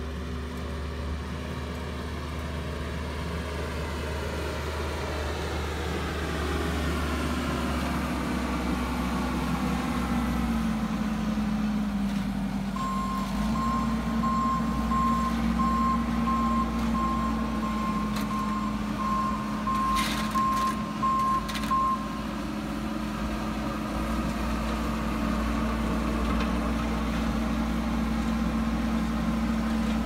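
Bobcat skid steer's diesel engine running steadily while it works a Harley rake soil conditioner, growing louder over the first several seconds as it comes closer. In the middle its backup alarm beeps steadily for about nine seconds, and a few sharp knocks come around twenty seconds in.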